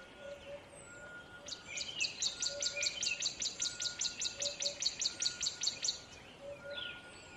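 Birdsong: one bird repeating a rapid high chirp, about four or five a second, from about a second and a half in until near the end, with other birds calling faintly around it.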